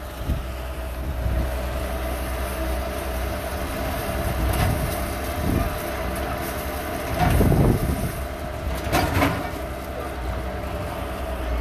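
Bobcat skid-steer loader's engine running steadily while wet concrete is poured from its raised bucket, the sound swelling louder briefly about two-thirds of the way through.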